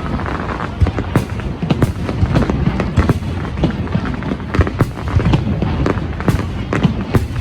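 Fireworks going off in rapid, irregular bangs and crackles over a steady low rumble, with music playing under them.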